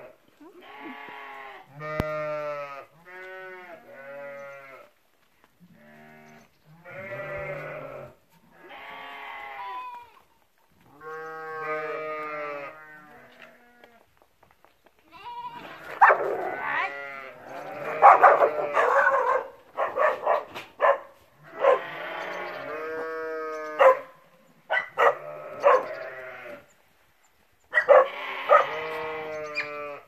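Sheep bleating over and over, several animals calling one after another in wavering bleats. From about halfway through, a sheepdog barks several times in short sharp barks among them.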